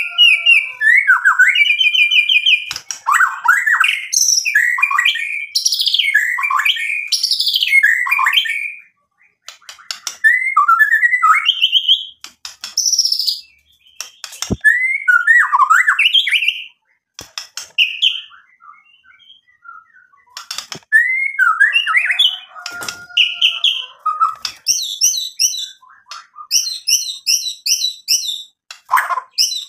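A caged male white-rumped shama singing loudly. Its song is a varied string of whistles, trills and quick chattering phrases, broken by short pauses. Near the end it runs into a fast series of repeated high notes.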